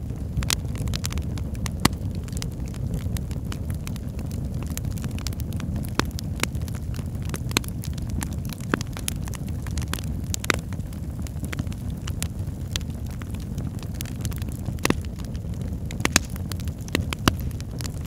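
Wood fire crackling in a fireplace: irregular sharp crackles and pops, several a second, over a steady low rush of flames.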